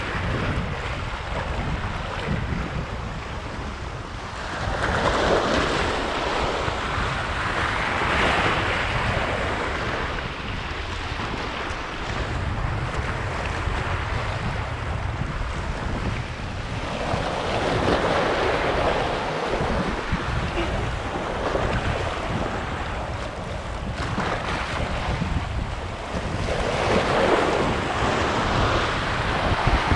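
Sea waves washing in, surging three times about ten seconds apart, with a steady wind rumble on the microphone.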